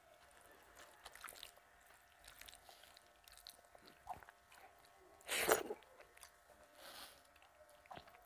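Close-miked eating sounds: chewing and small mouth clicks while fingers mix rice and dal on a metal plate, with one much louder noise lasting about half a second a little past halfway.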